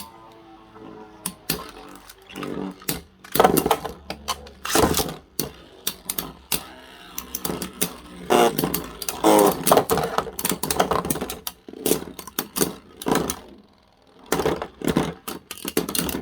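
Metal Fusion Beyblade tops spinning and battling: a faint whir for the first few seconds, then many sharp clacks and rattles as the tops knock into each other.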